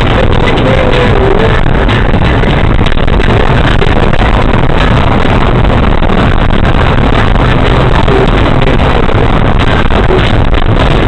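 Steady, loud road and engine noise inside a moving car, picked up by a dashcam microphone.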